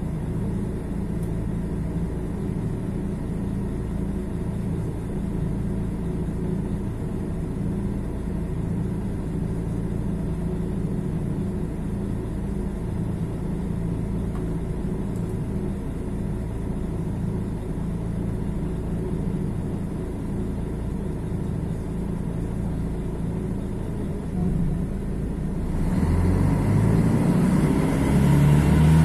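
Mercedes-Benz OM 457 LA inline-six diesel of an O-500MDA articulated bus running at a steady low engine speed, then revving up and accelerating through the Voith automatic gearbox near the end.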